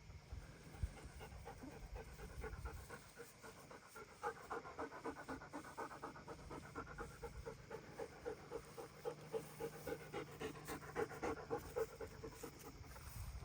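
German Shepherd dog panting in a quick, even rhythm of about three breaths a second. The panting starts a few seconds in and fades near the end.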